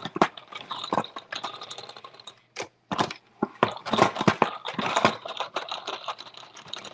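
Pump-style salad spinner being pumped by hand with wet greens inside: rapid, irregular plastic clicking and rattling over a faint steady whir from the spinning basket.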